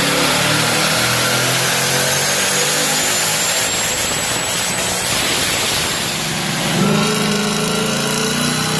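Supercharged 2018 Ford Mustang 5.0 V8 with a ProCharger P1SC, running on a chassis dyno. A thin high whine rises and then holds. The sound changes abruptly about seven seconds in to steadier running.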